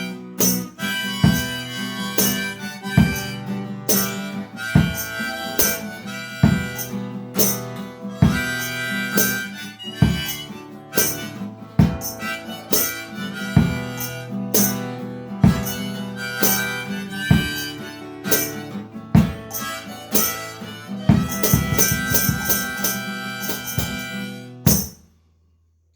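Harmonica playing over a strummed guitar in a steady, blues-style beat. The music stops abruptly near the end.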